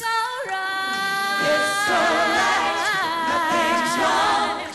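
Female singer holding a long sung note, which takes on vibrato. Other voices come in beneath her about a second and a half in, in close a cappella harmony. The chord breaks off near the end.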